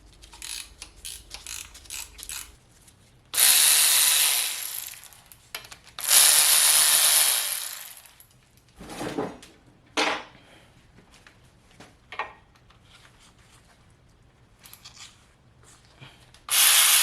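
Bolts coming out of an LS 5.3 V8's rear main seal housing: light ratchet clicks and metal rattles, then three loud bursts of a power tool running for a second or two each, with a few short knocks between them.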